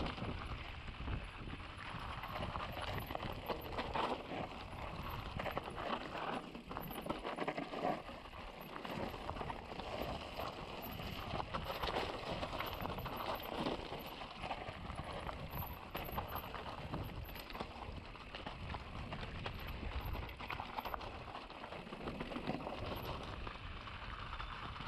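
Mountain bike riding down a rough trail: a continuous clatter of tyres, chain and frame rattling over stones and roots, with many small knocks throughout.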